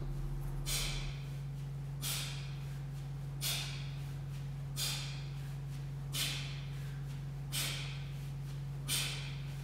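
A man's sharp, hissing exhales during two-handed kettlebell swings, one with each swing, about every 1.4 seconds, seven times, over a steady low hum.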